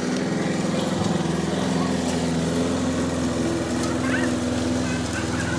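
Walk-behind petrol lawn mower engine running steadily at constant speed.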